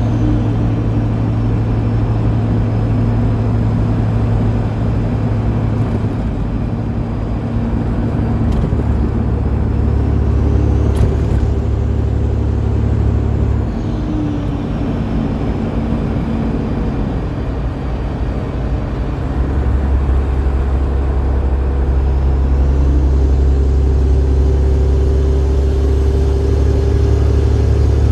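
Detroit Diesel Series 60 12.7-litre diesel pulling a heavy load of about 135,000 lb. The engine note changes in steps about a third of the way in, near the middle and about two-thirds of the way through, as gears are shifted. A high whine falls and rises with engine speed, and the engine runs louder near the end.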